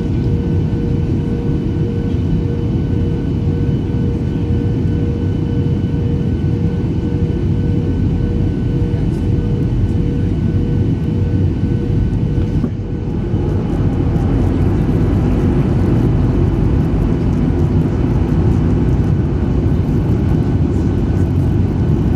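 Steady roar of a Boeing 737-800 jet airliner in flight, heard from inside the cabin: engine and airflow noise with a faint steady whine. About halfway through, the whine drops out and the roar becomes slightly louder.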